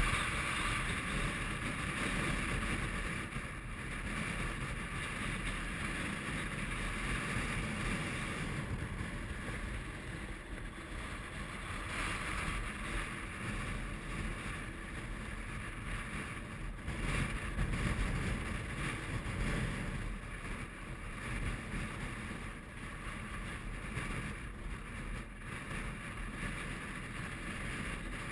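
Strong mountain wind blowing over the camera's microphone: a steady rushing noise that swells and eases in uneven gusts.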